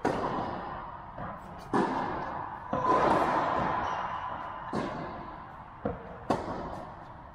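Tennis rally: the ball struck by racquets and bouncing on the court, about six sharp hits a second or two apart, each echoing in a large indoor hall.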